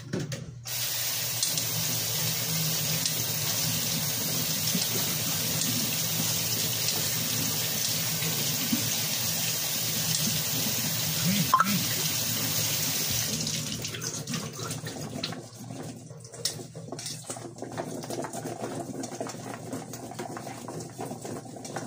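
Kitchen tap running into the sink as tomatoes are rinsed under it. The water is turned off about two-thirds of the way through, leaving small knocks and handling sounds.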